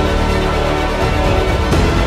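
Background music: a sustained orchestral-style theme with held tones and a deep low end.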